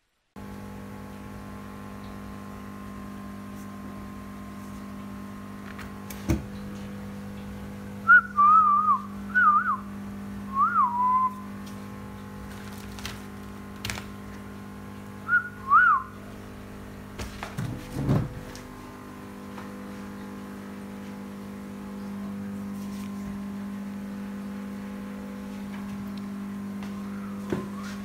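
Steady hum with several fixed tones, like a fan or appliance running. Short high chirps that rise and fall come over it, in two groups about a third and just over half way through. There is a low thump a little after that.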